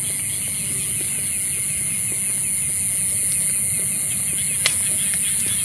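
Night insects calling: a loud, steady, very high-pitched buzz with rapid, evenly repeated chirps, over a low rumble. A single sharp click comes near the end.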